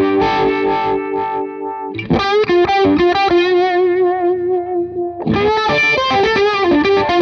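Electric guitar played through a NUX Monterey Vibe, a Uni-Vibe-style modulation pedal, giving the notes and chords a wavering, pulsing sweep. New chords are struck about two seconds in and again just past five seconds.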